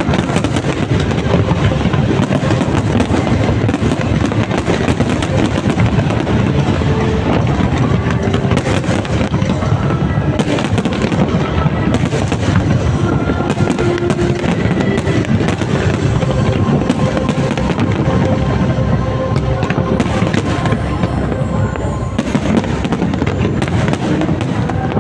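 Large aerial fireworks display: a dense, continuous barrage of shells bursting and crackling, loud and unbroken throughout, with music playing underneath.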